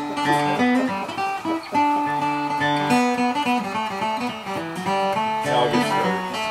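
Acoustic guitar played solo: a picked tune of changing notes over low bass notes, with some strumming.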